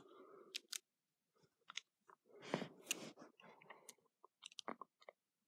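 Faint handling noise: scattered small clicks and brief rustling as a knife is turned over in the hands.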